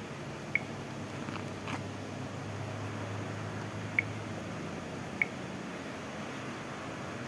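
Samsung Galaxy 550 phone giving short, high touch-feedback clicks from its speaker as its screen and keys are pressed, three times: about half a second in, about four seconds in and a second later. They sound over a steady low hiss.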